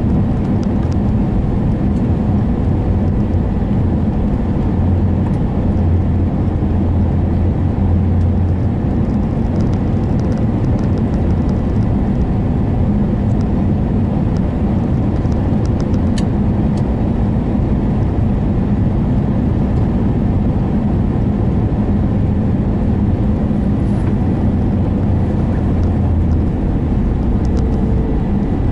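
Steady low rumble of engines and rushing air heard inside the cabin of an Airbus A321neo airliner with Pratt & Whitney PW1100G geared turbofans, descending on final approach.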